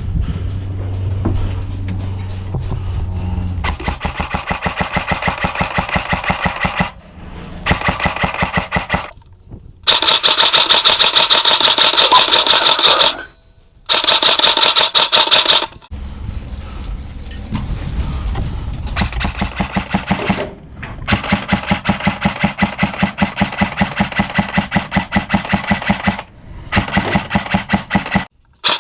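Airsoft electric guns firing full-auto in long bursts, a fast rattle of many shots a second, stopping and starting abruptly several times.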